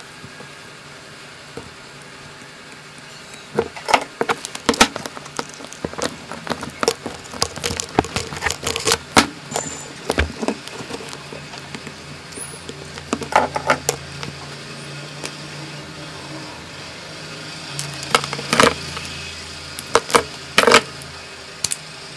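Irregular clicks, taps and rattles of hand tools and wires being handled on a workbench while wires are soldered onto an amplifier board. They come in clusters from a few seconds in, over a faint steady background hum.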